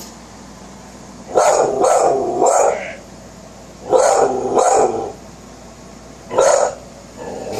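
Female pit bull barking at a window in short bursts: three barks, then two, then a single bark.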